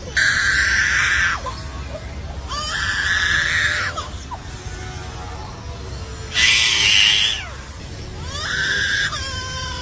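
A mimicking bird imitating a crying baby: four loud, harsh, wailing cries, with thin gliding whistled notes between them.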